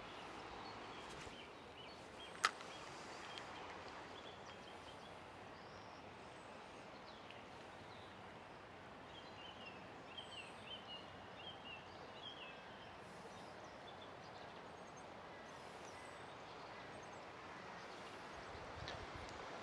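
Steady rushing hiss of river water flowing around a wading angler. A single sharp click about two and a half seconds in, and a small bird chirping several times around the middle.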